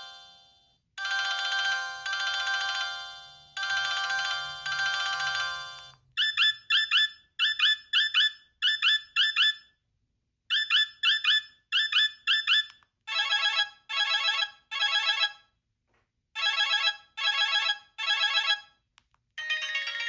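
Sanyo Vero mobile phone playing its built-in ringtones one after another. First comes a tone of chiming notes that each fade out, then a tone of quick high chirps in short repeating groups, then one that pulses in two groups of three, and near the end a busier melodic ringtone begins.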